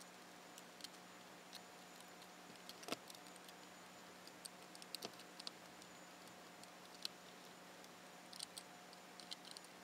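Faint scattered clicks and taps of a small screwdriver turning screws into a 3DR Solo drone's body, over a low steady hum. The sharpest clicks come about three and five seconds in.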